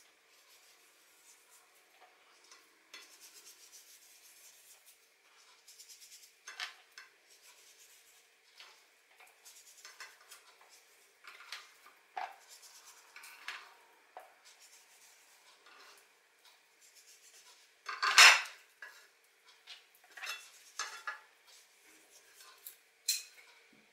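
Hands handling raw beef chunks and a china plate on a plastic cutting board: scattered light taps and clicks, with a louder clatter about three-quarters of the way through.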